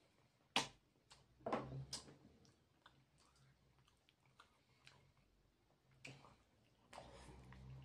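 Close-miked eating sounds: wet lip smacks and mouth clicks as a cooked chicken bone is sucked, then soft chewing of a stuffed cabbage roll. A low steady hum sets in near the end.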